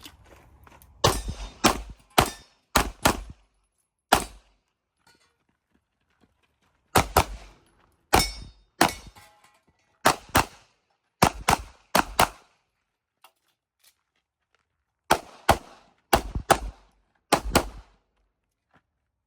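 CZ Shadow 2 9mm pistol firing about twenty shots, mostly in quick pairs, in three strings with pauses of a few seconds between them.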